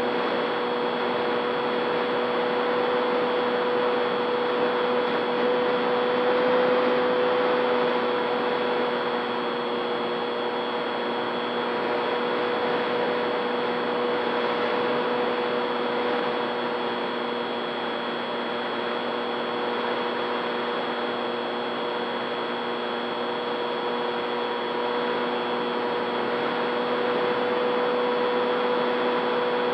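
Radio-controlled model plane's motor and propeller running with a steady whine, heard from a camera on board, with wind rushing over the airframe. It gets a little louder about six seconds in and again near the end.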